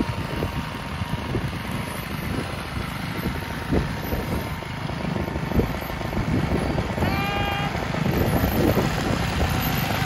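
Ride-on lawn mower engine running steadily as the mower drives across the lawn, with a low rumble and occasional knocks. About seven seconds in, a brief high-pitched call rises over the engine.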